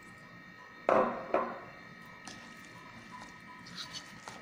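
Onion-and-gram-flour batter being mixed by hand in a bowl. Two loud, short squishing sounds come about a second in, then softer squishing and small clicks as the wet mixture is worked.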